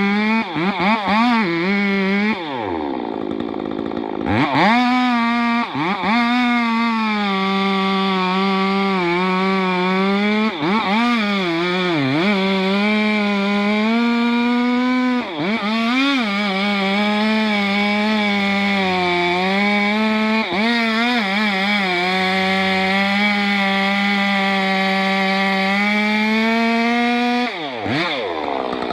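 Two-stroke chainsaw held at high revs while cutting wood, its note sagging slightly under load. The revs drop and climb back several times, with a longer drop a few seconds in and another near the end.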